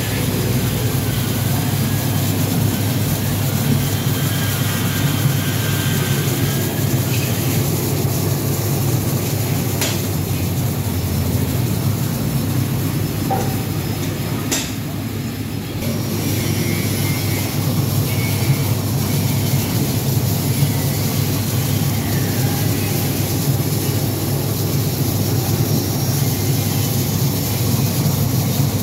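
Porang tuber washing machine running: a steady hum from the motor-driven brush rollers, with hissing water from the spray nozzles over the tubers. Two brief sharp knocks, about ten and fifteen seconds in.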